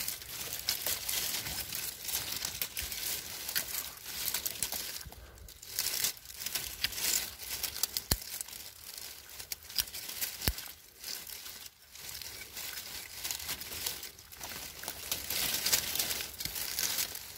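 Dry twigs, vines and leaves rustling and crackling as they are handled and clipped with pruning shears, with two sharp clicks a couple of seconds apart.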